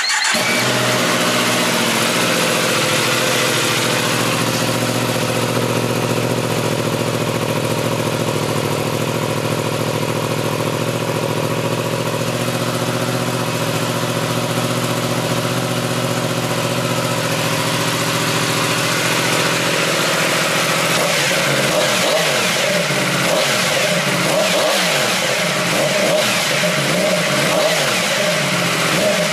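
Yamaha FZ-10/MT-10's 998 cc crossplane inline-four running at a steady idle through its stock muffler fitted with an A&R Motorsports race baffle. The note wavers somewhat in the last several seconds.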